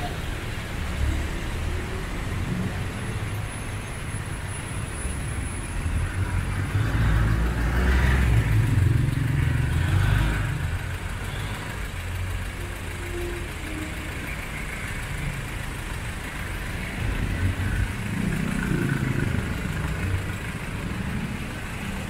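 Street traffic: motor vehicles running past, with a low engine rumble that swells and fades as one passes close about eight seconds in, and again more briefly near the end.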